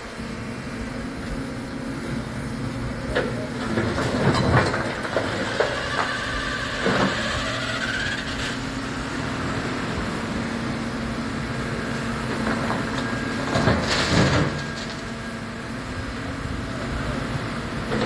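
Hidromek 140 crawler excavator's diesel engine running steadily under load, with a rising hydraulic whine as the arm works. A few loud clatters of broken stone and rubble dropping into a steel tipper truck bed.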